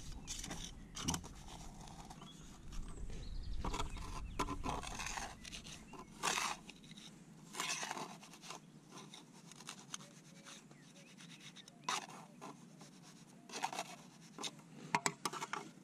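Irregular short scrapes of a steel grout trowel on wet grout mortar, taking it from a board and working it into the joints of a brick chimney.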